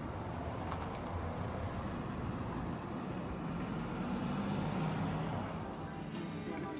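Road traffic going by, a steady rumble that swells as a vehicle passes about two-thirds of the way through.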